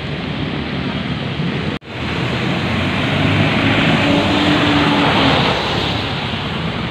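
Street traffic noise mixed with wind buffeting the microphone, a steady rushing hiss. The sound cuts out for a moment about two seconds in, then picks up again.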